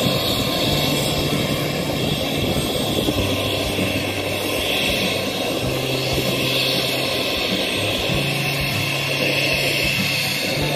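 Helicopter turbine engines running on the ground: a steady high whine over a constant rush of engine noise.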